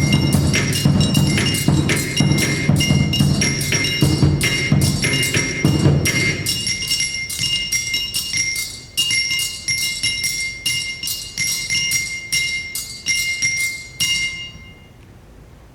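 Percussion ensemble playing fast, even strikes on ringing pitched metal percussion over low drums. The drums drop out about six seconds in, the metal strikes carry on alone and stop near the end.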